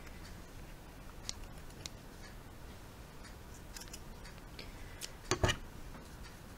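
Scissors snipping through a worsted weight yarn tail: a few light blade clicks, then a louder double snip about five seconds in.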